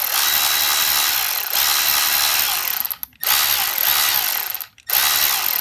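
Milwaukee M12 3/8-inch cordless ratchet running in three triggered bursts, a high motor whine with gear noise. It stops briefly about three seconds in and again near the end.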